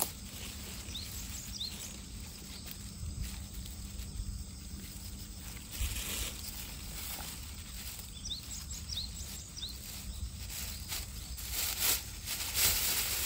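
Rustling of a plastic bag and dry ground litter as chestnuts are picked up and dropped into the bag, in short bursts that are loudest near the end, over wind noise on the microphone. Faint bird chirps come now and then.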